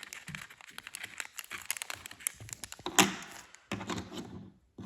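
Blind-packed enamel trader pin being opened and handled: packaging rustling and crinkling with many small, hard clicks and taps, and a louder knock about three seconds in.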